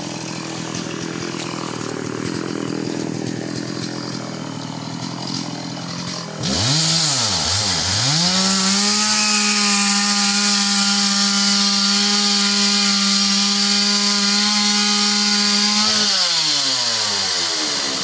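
Two-stroke chainsaw idling, then revved twice and held at full throttle for about eight seconds before dropping back to idle near the end, as it cuts up a fallen tamarind tree.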